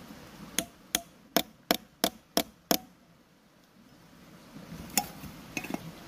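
A hammer striking the end of a metal pipe held against a tree trunk: seven sharp blows at about three a second, then one more a couple of seconds later followed by a few light clicks. The pipe is being driven through the bark to punch out a round patch for grafting.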